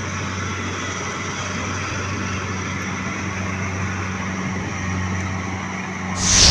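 Rice combine harvester's engine running steadily with a low hum, then a sudden loud rush of noise about six seconds in.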